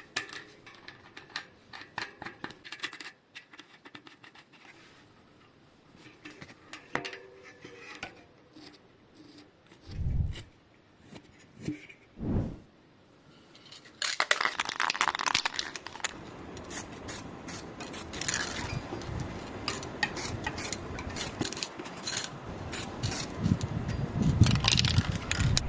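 Metal clinking and scraping, with two low thumps about ten and twelve seconds in; from about fourteen seconds it turns into a louder, busier stretch of rustling noise and rapid clicks.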